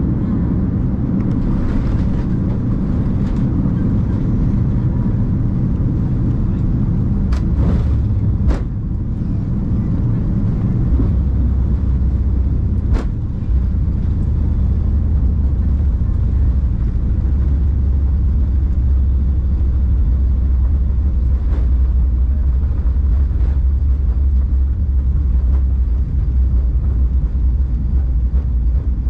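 Steady low rumble of a vehicle on the move, with a few sharp knocks about a quarter of the way in and again near the middle; the deep drone grows stronger from a little before halfway.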